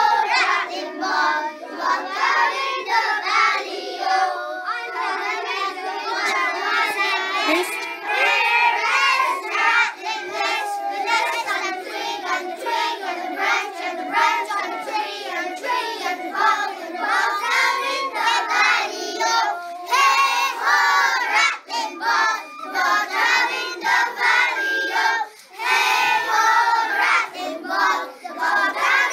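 A group of young children singing a song together in unison. Near the end a tin whistle plays along with them.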